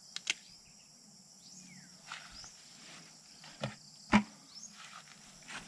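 Insects chirring steadily at a high pitch, with a few sharp clicks and knocks scattered through, the loudest about four seconds in.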